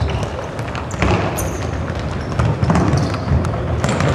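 Futsal play on a wooden sports-hall floor, echoing in the hall: repeated thuds of the ball being kicked and bouncing, with brief squeaks of shoes on the floor.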